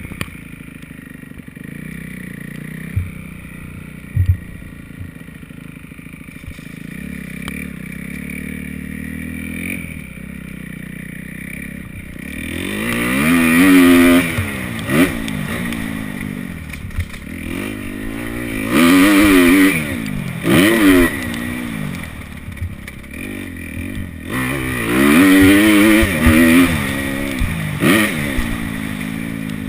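Kawasaki KX250F four-stroke single-cylinder dirt bike engine running at low revs with a couple of knocks, then from about twelve seconds in revving up and down again and again as the bike rides.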